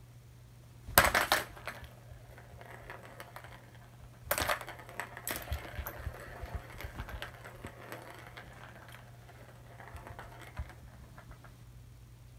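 A pet-grass growing bag in a saucer being handled and set on a kitchen counter: two sharp clatters about a second in and about four seconds in, then several seconds of scratchy rustling and scraping.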